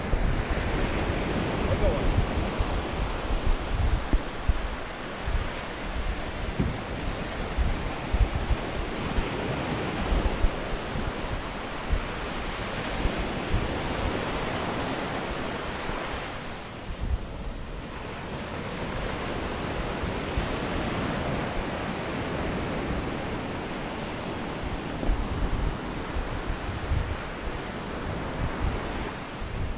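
Small surf breaking and washing up a sandy beach in a continuous surge, with wind buffeting the microphone in gusts. The surf eases briefly a little past the middle.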